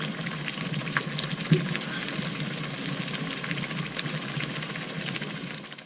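Kombdi vade deep-frying in hot oil: a steady sizzle with many small crackles and occasional louder pops.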